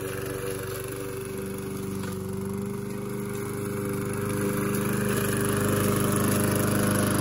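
Walk-behind rotary push lawn mower's small single-cylinder engine running steadily under load while cutting through tall weeds, getting somewhat louder in the second half.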